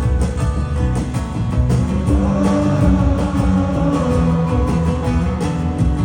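Rock band playing live, an instrumental stretch with guitar to the fore over a steady beat and no singing.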